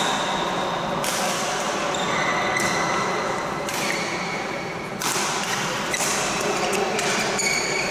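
Badminton rally: rackets striking the shuttlecock with sharp cracks about once a second, with short squeaks of court shoes on the floor over the steady noise of a busy sports hall.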